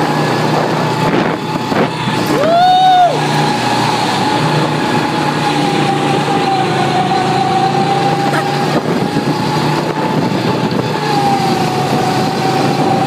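Go-kart engine running steadily while the kart drives, with a steady whine that wavers slightly in pitch. About two and a half seconds in, a short cry rises and falls above it.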